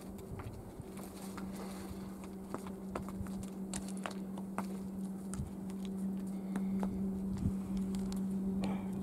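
Footsteps and scrambling on rocky, brushy ground: scattered crunches, scrapes and rustles of boots and hands on rock and shrubs. A steady low hum runs underneath.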